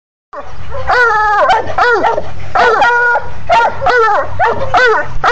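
Coonhound puppies yelping and whining in a steady string of high cries, each rising and falling in pitch, about two a second.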